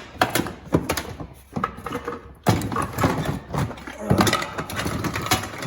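Loose car parts clattering and rattling as they are rummaged through and tossed aside, a quick string of knocks and clanks.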